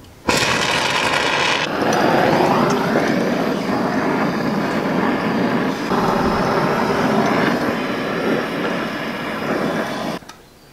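Gas blowtorch lit with a sudden start and burning with a steady rushing noise while its flame heats a bolt on the engine. The hiss eases a little about two seconds in, then the torch cuts off near the end.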